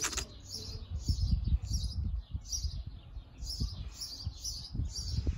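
Small garden birds chirping: short, high chirps repeated evenly, about three a second.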